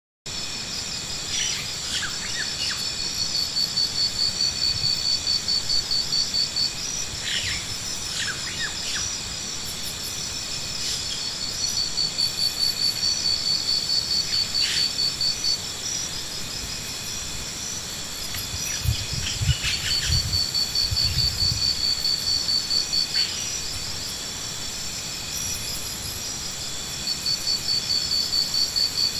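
Insects chirping in repeated trains of rapid high pulses, each train lasting a few seconds, over a steady high buzz, with scattered short bird calls. A brief low rumble comes a little past the middle.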